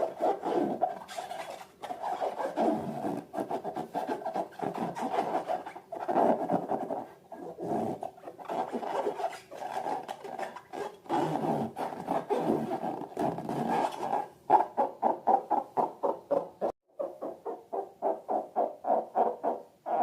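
Rubber balloons squeaking and squealing as they are handled. The sound is a rough, pitched squeal in long stretches, then in quick pulses of about four a second from about two-thirds of the way in.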